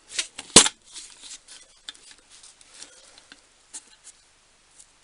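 Small metal angle brackets and screws being handled and set down. There is a sharp knock about half a second in, then scattered light clicks and rustling.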